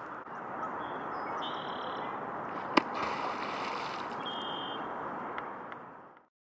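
A North American beaver slaps its tail once on the water surface, a single sharp smack with a spray of splashing right after it, a beaver's warning signal. A steady background hiss of lapping water runs underneath and fades out near the end.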